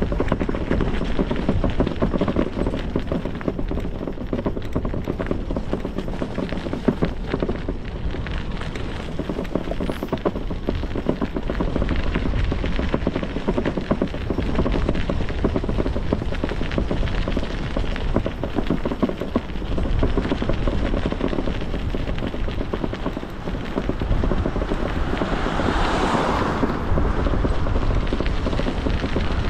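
Wind rushing over the microphone and the rumble of a bicycle rolling along the road, steady throughout. Near the end a louder hiss swells for a couple of seconds and fades.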